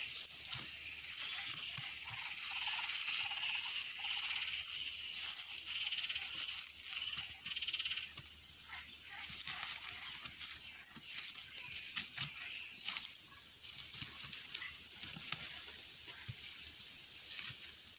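A chorus of frogs croaking steadily, under a constant high-pitched buzz.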